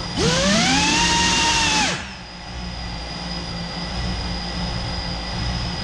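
FPV quadcopter's electric motors whining: the pitch climbs quickly as the throttle goes up, holds for about a second and a half, then falls away to a quieter steady whir with a thin high whistle.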